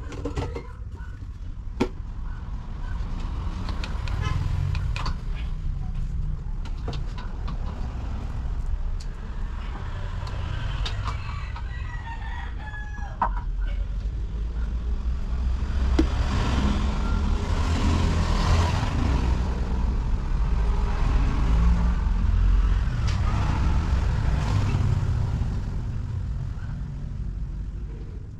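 Roosters crowing several times, with the loudest stretch in the second half, over a steady low rumble; a few sharp clicks near the start.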